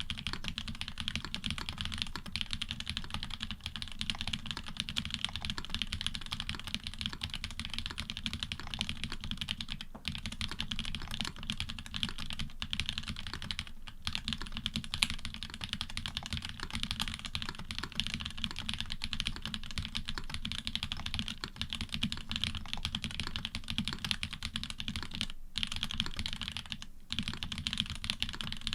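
Fast continuous typing on a custom Orion v2.5 mechanical keyboard with switches made from Cherry bottom housings and Cream tops and stems, GMK keycaps, an FR4 plate and plate and switch foam. Key presses come as a dense stream of clacks, with a few short pauses.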